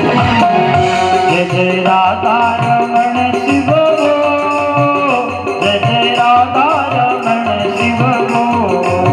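Devotional bhajan music: a steady hand-drum rhythm under a sustained melody that glides in pitch.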